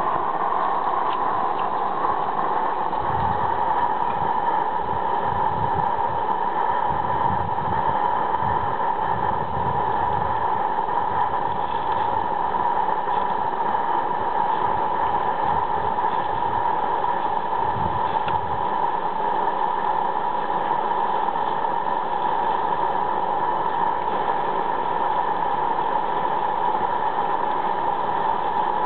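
Steady hiss from an Accucraft Saxon IK live-steam garden-railway locomotive standing with steam up, with irregular low thumps during the first half.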